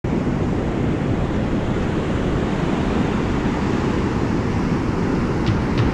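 Steady wind buffeting the microphone over the wash of ocean surf breaking and running up a sandy beach, with a couple of faint clicks near the end.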